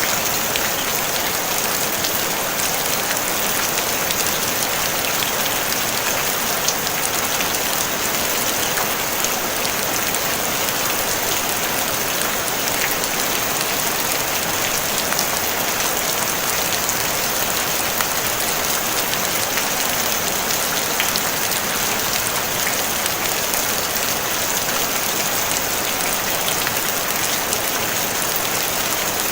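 Gentle rain falling steadily on a tin roof: an even hiss with faint scattered drop ticks.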